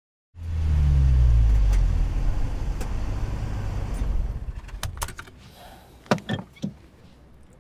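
A car's engine rumbles loud and low, its pitch falling as the car slows, and dies away after about four seconds. A few sharp clicks follow near the end.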